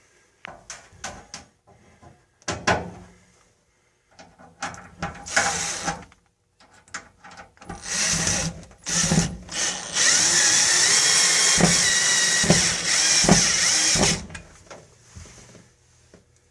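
Power drill driving a screw through a sheet-metal heat shield into the wall: first clicks and rattles of handling the metal, then a few short spurts, then a steady run of about four seconds that stops near the end.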